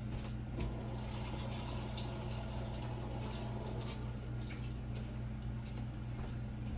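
Water being poured into a baking dish of beef neck bones, over a steady low hum.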